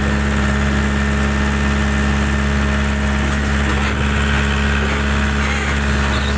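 Heavy engine running steadily at a constant speed, a continuous low hum that does not rise or fall.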